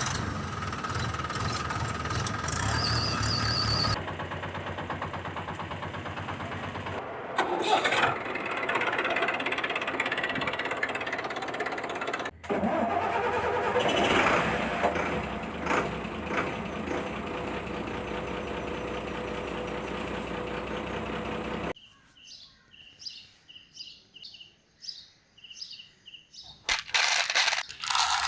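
Battery-powered toy construction vehicles running, giving a steady engine-like mechanical noise that changes abruptly several times. Near the end it drops to a quiet stretch of light, evenly spaced clicking, about two to three clicks a second, before the loud running noise returns.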